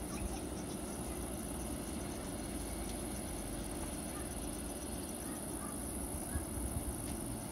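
Insects in meadow grass chirring in a steady, high-pitched continuous band, over a low rumble.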